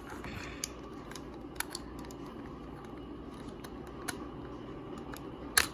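Hard plastic toy parts clicking and knocking as they are handled and snapped together: a few scattered small clicks, the loudest one near the end.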